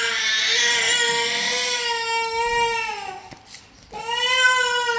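Domestic cat giving two long, drawn-out meows, the first already going at the start and sliding down in pitch before it stops about three seconds in, the second starting about a second later, rising and then slowly falling.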